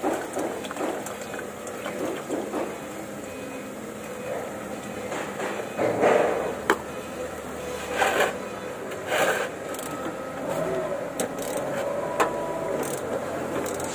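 Hand tools handled under a car: scattered metallic clicks and knocks of a socket, extension bar and ratchet being picked up and fitted to a filter housing cap, with a few louder knocks in the middle.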